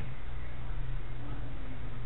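Steady low hum with even background room noise; no ball strikes or other distinct knocks.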